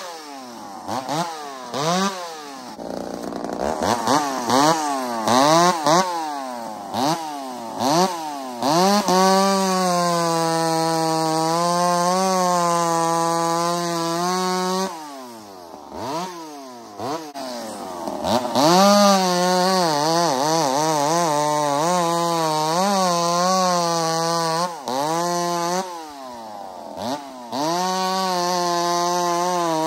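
Ported Husqvarna 266XP two-stroke chainsaw cutting through a log. It is blipped up and down a few times at first, then held at full throttle under load for long stretches, its pitch wavering slightly, and eased off briefly about halfway through and again twice near the end.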